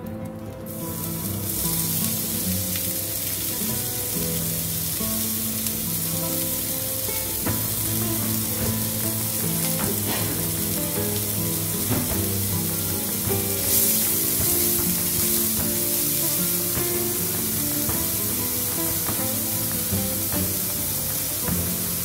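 Diced onion sizzling steadily as it fries in hot olive oil in a pan, the sizzle building a second or two in after the onion goes in, with background music underneath.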